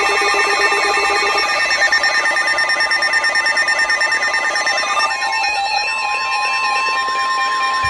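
NOAA Weather Radio warning alert: layered electronic alarm tones, several steady tones with fast warbling beeps. About five seconds in, this gives way to a single steady alert tone, the 1050 Hz weather-radio warning tone, which runs until the voice message begins.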